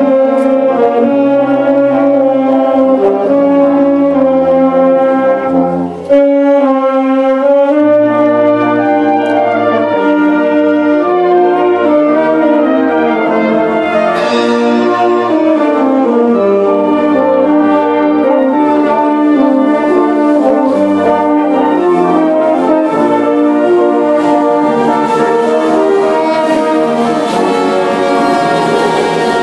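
Wind band playing: saxophones, clarinets, horns, trombones and tubas together in full harmony, with a cymbal crash about fourteen seconds in and a brief break in the sound about six seconds in.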